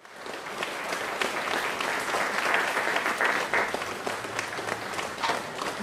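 Audience applauding: many hands clapping in a dense, steady patter that swells up quickly at the start.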